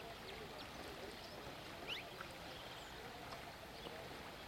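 Faint outdoor riverside ambience: a steady low hiss with a few brief, faint high chirps, one a little clearer about two seconds in.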